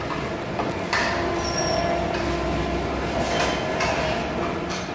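Steady room noise of a fast-food restaurant: a low rumble from fans and the kitchen extraction, with a few faint knocks and clinks from the kitchen.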